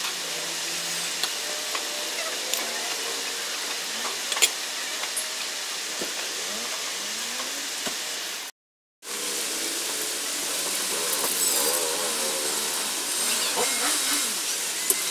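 Coconut milk simmering in an aluminium wok with a steady bubbling hiss, stirred with a metal spoon that clicks against the pan now and then.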